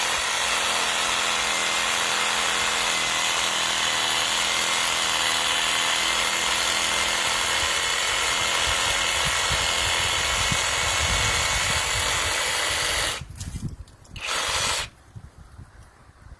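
Cordless brushless reciprocating saw running steadily while sawing through a small tree branch. It stops about 13 seconds in, runs again for about a second, and stops.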